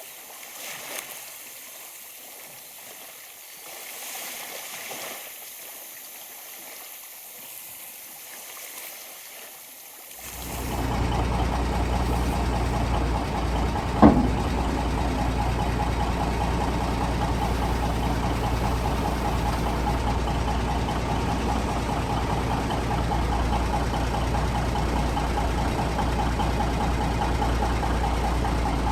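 Faint background sound for about ten seconds, then the straight-piped diesel engine of a 1966 Kenworth W900 dump truck comes on and runs steadily at idle, with a single sharp knock a few seconds later.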